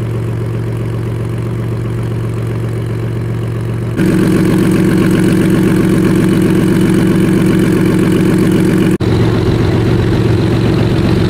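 Car engines idling, a steady, even rumble. The sound jumps louder about four seconds in and changes again abruptly about nine seconds in.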